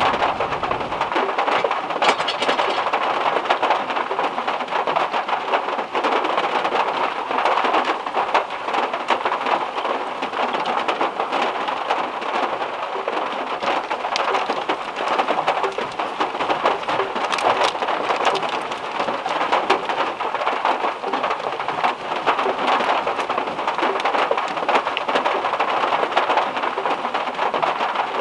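Heavy rain falling on a small car's metal roof, heard from inside the cabin as a dense, steady patter with many single drops ticking out above it.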